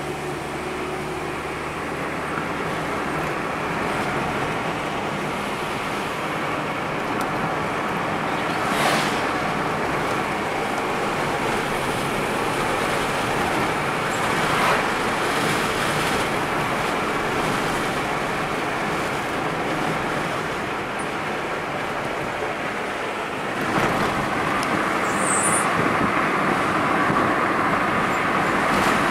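Steady road and engine noise heard from inside a moving car. It swells briefly twice, about 9 and 15 seconds in, and grows louder about 24 seconds in.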